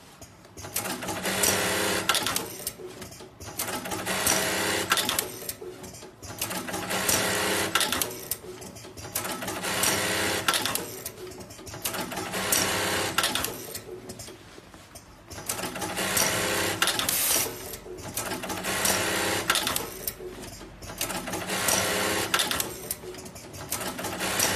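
Sakura-Stitch S-254 automatic two-needle belt loop attaching machine tacking belt loops onto jeans. It runs in repeated cycles, each a burst of stitching and clatter lasting one to two seconds with a short pause between, about ten in all.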